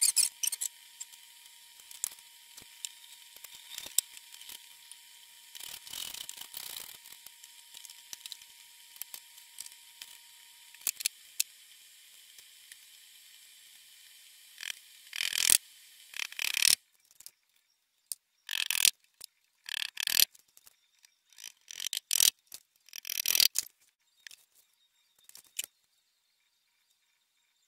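Flat-pack particleboard desk being assembled by hand: light clicks and knocks of panels and hardware, then a run of short, loud rasping sounds in the second half.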